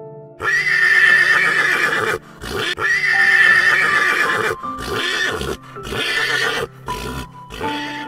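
Horse neighing: two long, loud whinnies, then three shorter, quieter ones, over background music.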